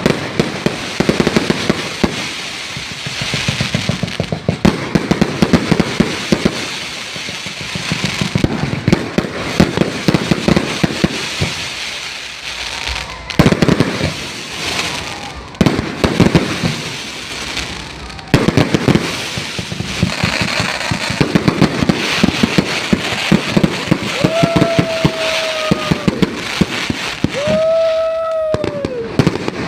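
Fireworks display: rapid crackling from bursting fireworks throughout, with a few sharper bangs around the middle. Near the end there are two held high tones, each falling away at its end.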